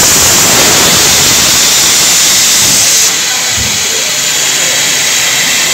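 Compressed air hissing out of a train's air-brake hose coupling as it is released between locomotive and coach. The steady, loud hiss starts suddenly and drops somewhat about three seconds in.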